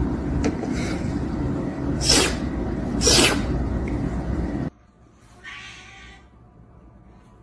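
An animal, likely a pet, giving two short, sharp hissing bursts about a second apart over a loud low rumble. The rumble cuts off suddenly about two-thirds of the way through, leaving fainter sound.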